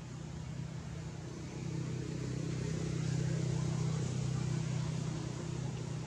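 A steady, low engine hum, like a motor vehicle running, swells louder about a second and a half in and eases off slightly near the end.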